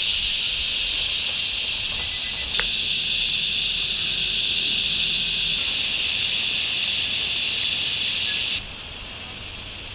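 Cicadas droning in a steady, high-pitched chorus that drops abruptly in level near the end.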